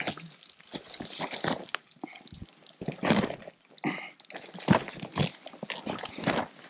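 Footsteps walking along a dirt road, irregular steps about one every half-second to second.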